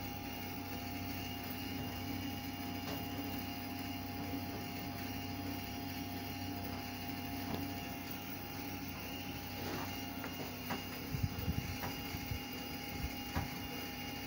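Steady hum with several held tones from the on-board equipment of Choshi Electric Railway car 2001, an old electric railcar standing still, heard inside its driver's cab. A few light knocks and low thumps come near the end.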